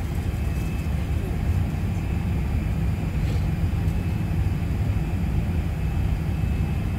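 Steady low rumble of an Airbus A380's engines and airflow heard inside the passenger cabin while the airliner is on approach, with a faint thin steady whine above it.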